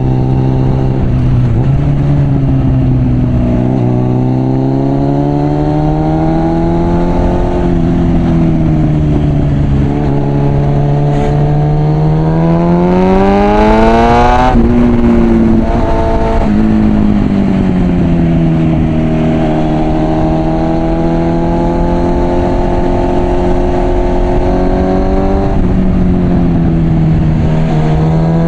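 Suzuki Bandit 650's inline-four engine through an aftermarket Mivv exhaust, under way: the revs rise and fall with throttle and gear changes. About halfway through, a long hard acceleration climbs and cuts off sharply at a shift. After a steadier stretch, the revs climb again near the end.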